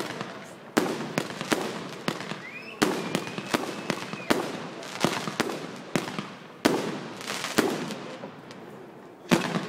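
Aerial fireworks bursting overhead: a quick, irregular series of sharp bangs, about one or two a second, with crackling in between.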